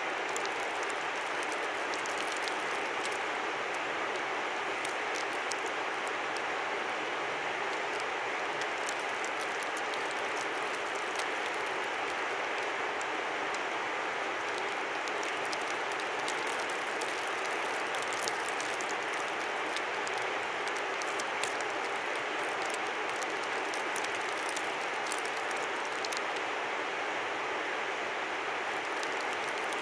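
Steady rushing of a river, an even wash of flowing water with scattered faint high ticks.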